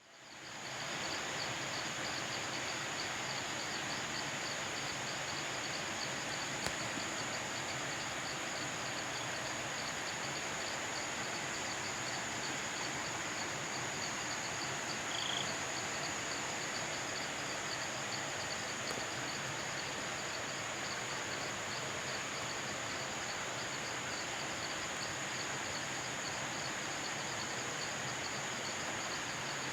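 Cicadas and crickets calling steadily: one continuous high-pitched drone and a rapidly pulsing chirr just below it, over the even rush of a stream. The sound fades in over the first second, and a single brief chirp comes about halfway through.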